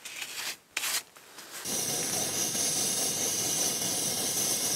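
Camp stove burner hissing steadily, starting suddenly about a second and a half in after a few faint handling noises.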